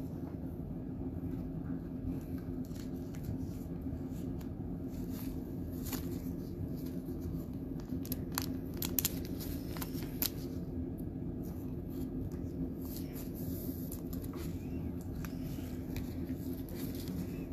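Gloved hands handling a trading card and a clear plastic card holder: light plastic rustling with a few small clicks, most of them about halfway through, over a steady low hum.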